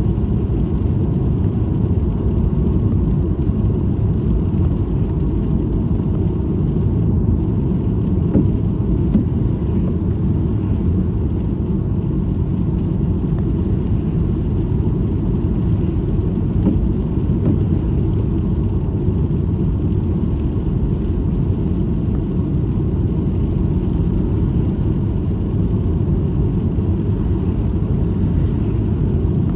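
Road noise of a moving car heard from inside its cabin: a steady low rumble of tyres and drivetrain.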